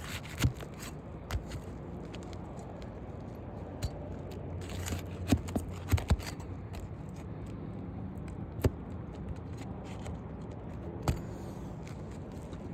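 Scraping and scattered sharp knocks and clicks of hand work on a roof while a damaged three-tab shingle is worked loose for removal, with a longer scrape about five seconds in.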